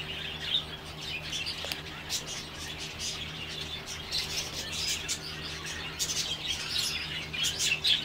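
A flock of caged budgerigars chirping and twittering, many short chirps throughout, over a steady low hum.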